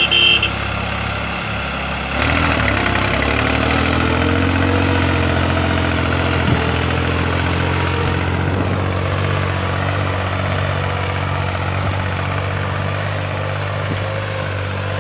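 Diesel tractor engines, a New Holland and a Swaraj 855, running steadily under load while pulling disc harrows. The engine sound steps up and gets louder about two seconds in, with a brief rise in pitch, then holds steady.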